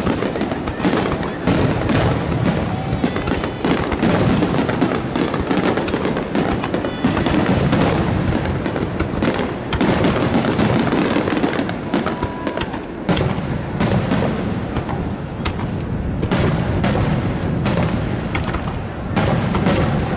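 Aerial firework shells bursting in a dense, continuous barrage, one report following another with almost no gap.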